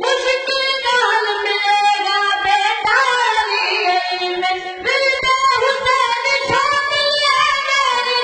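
A boy singing an Urdu song solo into a microphone, in long held notes that bend in pitch.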